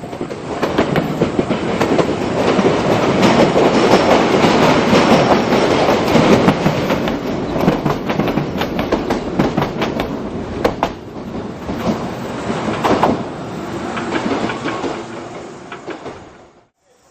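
A train passing close by, its wheels clattering over the rail joints with a rapid run of clicks. It swells in the first second, is loudest in the first half, eases off, and cuts off suddenly near the end.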